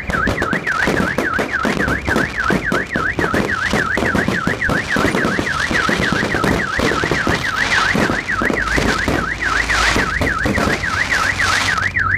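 Fireworks crackling and popping in dense volleys, with a car alarm warbling up and down several times a second throughout.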